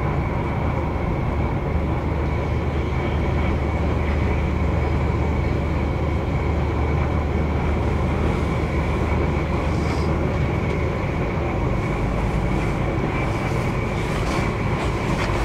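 Inside a moving electric commuter train: steady rumble of wheels on the rails, with a faint steady whine over it. A low hum in the rumble drops away about ten seconds in.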